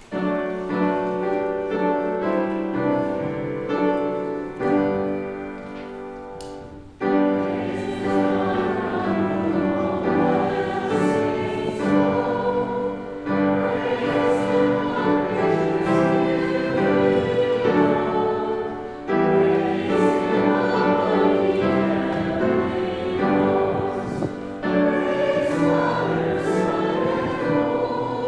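A congregation singing a hymn with instrumental accompaniment. For about the first seven seconds the instrument plays the introduction alone, then the congregation comes in together and the sound grows louder.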